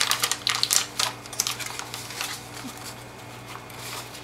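Quick clicks and rustles of a cardboard cornstarch box and its plastic liner being handled as a spoonful is scooped out, busiest in the first second and a half and then thinning to a few small ticks.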